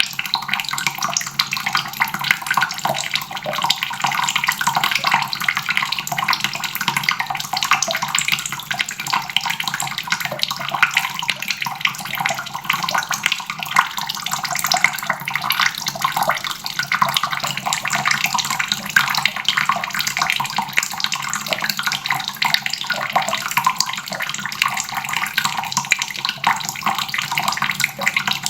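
Water faucet running steadily, the stream splashing into a basin.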